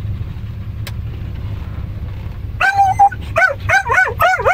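Dog barking and yelping at a moving windshield wiper: a quick run of short, high calls that bend up and down in pitch, starting a little past halfway, over a steady low rumble inside the car.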